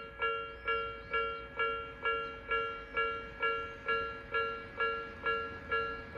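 Japanese level crossing warning bell ringing in a steady, even rhythm of about two strikes a second, each strike a bright ringing tone that fades before the next.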